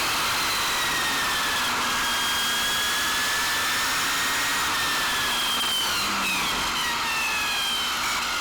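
Electric motor of an RC speed-run car whining at high speed, its pitch slowly falling and then rising again, with a few quick pitch changes near the end, over a loud rush of wind and road noise.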